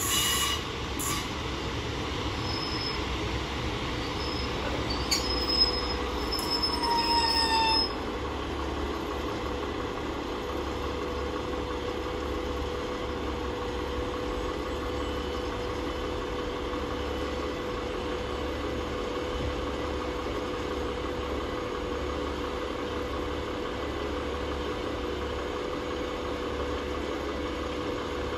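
Class 150 Sprinter diesel multiple unit braking into the platform, its brakes squealing in several high tones that stop about eight seconds in. After that its diesel engines run on steadily at idle while it stands.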